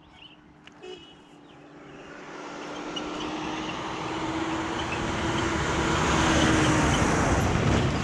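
A van coming up the road and passing close by: engine and tyre noise swell over several seconds to a peak near the end, over a steady engine hum.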